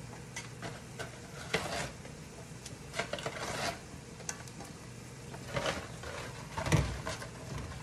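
Dry lasagna noodles being taken out of a cardboard box and slid one by one into a pot of boiling water: irregular papery rustles and scrapes of box and pasta, with a louder knock near the end, over a steady low hum.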